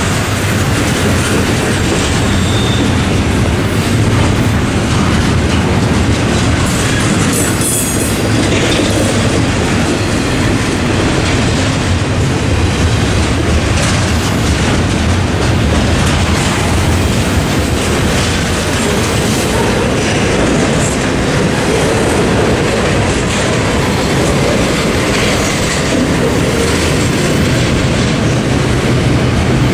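Double-stack intermodal container cars of a freight train rolling steadily over a level crossing: a continuous rumble of steel wheels on rail with repeated clicks, and a brief high-pitched squeal about eight seconds in.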